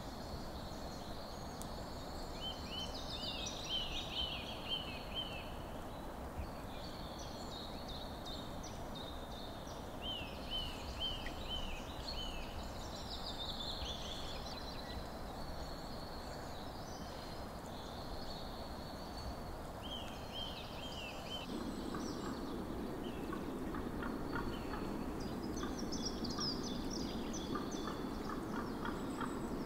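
Wild birds singing, one repeating short phrases of a few quick falling notes every several seconds, with other higher chirps, over a steady outdoor background hiss. About two-thirds of the way in, a louder low, fast pulsing sound joins and carries on.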